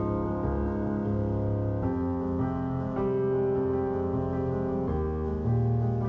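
Background piano music, sustained chords that change about two seconds in and again near the end.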